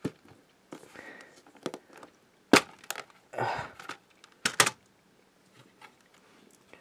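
Clear plastic DVD case being snapped open: several sharp plastic clicks and cracks, the loudest about two and a half seconds in and a double click about four and a half seconds in, with a brief rustle between them.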